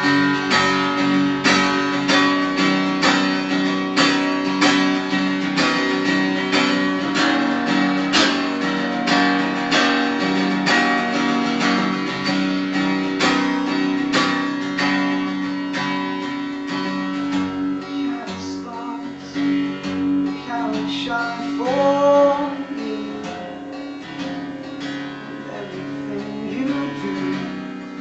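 Taylor acoustic guitar strummed in a steady rhythm, about two strums a second, easing into quieter, sparser playing over the last few seconds.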